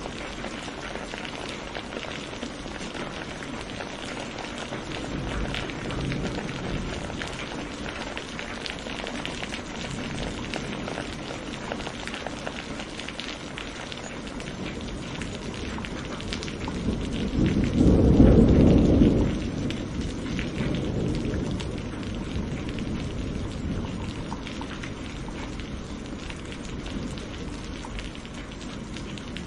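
Steady rain falling on leaves, with one deep roll of thunder a little past halfway that swells and fades over about three seconds.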